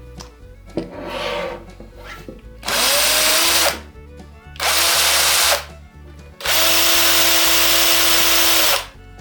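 Cordless power driver run in three bursts, the last and longest over two seconds, each starting with a brief rising motor whine and then holding a steady pitch under a loud, dense mechanical noise.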